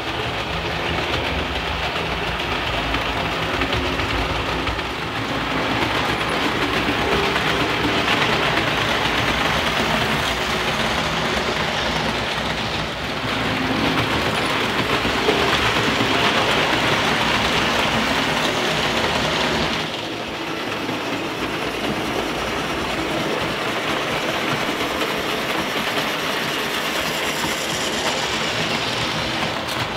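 Märklin H0 model trains running on metal M-track: a steady rattle and clatter of wheels over the pressed-steel track with the hum of the locomotive motors. The low end drops a little about two-thirds in.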